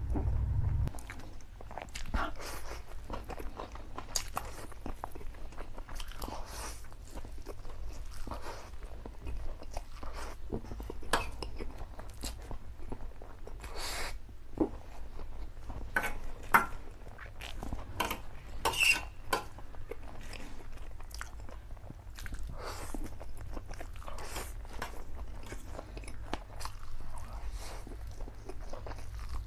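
A man slurping and chewing mouthfuls of spicy instant black bean noodles, with irregular wet smacks and mouth clicks throughout.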